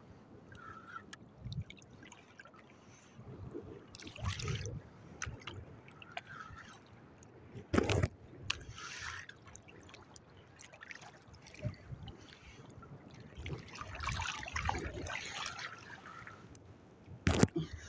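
Shallow seawater sloshing and trickling close to the microphone, in uneven splashy patches, with a sharp knock about eight seconds in and two more near the end.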